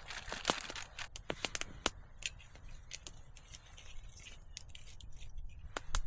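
Wood campfire crackling, with irregular sharp pops and snaps of varying loudness.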